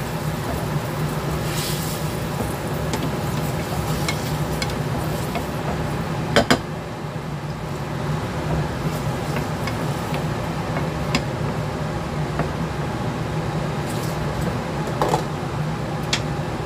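Water sizzling and bubbling in a hot nonstick frying pan of diced potatoes and ham, just after it was poured in, while a wooden spatula stirs. A few sharp knocks come through, the loudest about six seconds in, over a steady low hum.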